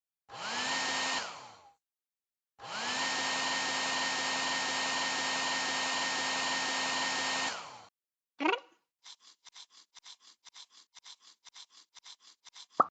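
Hair dryer switched on briefly, then run steadily for about five seconds, its motor whine rising as it spins up and dropping away as it is switched off. Faint rapid ticking follows, about four a second, with a sharp click near the end.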